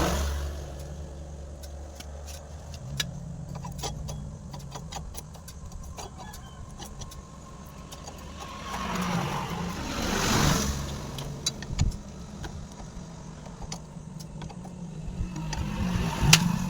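A motor vehicle engine running steadily, swelling louder three times, with scattered sharp metallic clicks.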